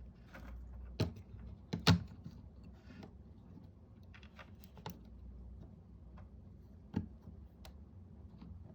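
Irregular sharp clicks and light taps of small hard plastic parts and tools being handled while a computer mouse is worked on. The loudest click comes just before two seconds in.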